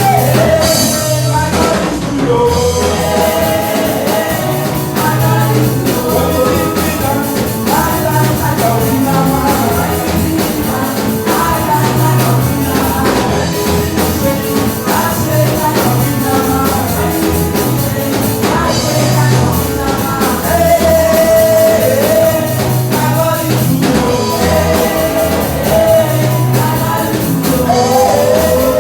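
Praise song: a singing voice over drums, bass and guitar with a steady beat.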